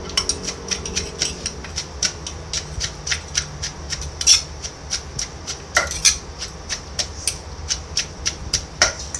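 Wooden pestle pounding shredded green papaya salad in a clay mortar: a quick run of knocks, several a second and slightly irregular.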